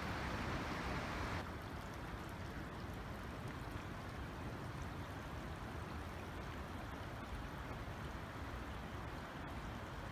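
Steady outdoor rushing noise, like running water or wind, with a low fluctuating rumble; it drops abruptly to a slightly quieter, duller hiss about a second and a half in.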